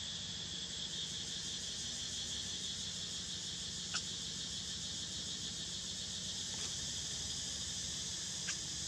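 Steady chorus of forest insects such as crickets, a continuous high-pitched trill, with a low background rumble. A couple of brief sharp clicks come about four seconds in and again near the end.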